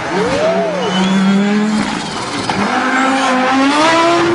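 Audi S1's engine running hard under load: its note holds, dips about two seconds in, then climbs steadily as it revs up again near the end.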